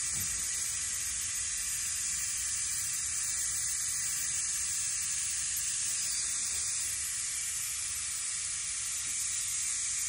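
Steady hiss of air escaping from a reamed puncture in an inflated tractor tire, leaking around the tool left in the hole: the tire is losing pressure while the plug is readied.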